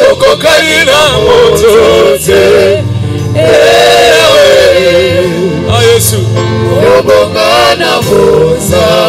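Live gospel worship song: several voices singing together, with wavering sustained notes, over a keyboard-led band.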